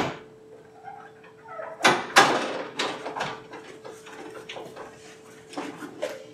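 A sharp knock as the glass door is pushed open, then a hand truck loaded with a large cooler clattering and rattling through the doorway, loudest about two seconds in, with smaller knocks after. A faint steady tone runs underneath.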